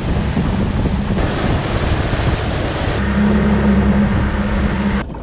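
Yamaha 40 hp outboard motor running steadily at speed, with wind rushing over the microphone and water noise from the hull and wake. About three seconds in, the engine's steady tone comes through much louder and closer.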